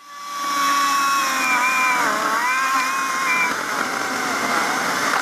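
Echo 58-volt brushless cordless chainsaw cutting into a tree trunk: the electric motor's high whine with the rasp of the chain through the wood. The pitch dips about two seconds in as the chain loads up in the cut, then recovers.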